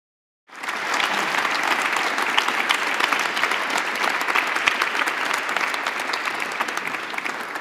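Audience applauding, a dense patter of many hands clapping. It starts abruptly about half a second in and eases off near the end.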